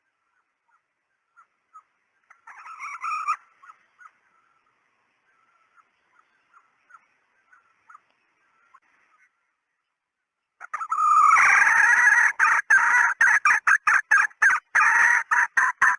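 Junglefowl hen calling, a lure call of the kind hunters play to draw in males. Soft scattered clucks with a short louder burst about three seconds in, then from about eleven seconds a loud, rapid run of cackling notes.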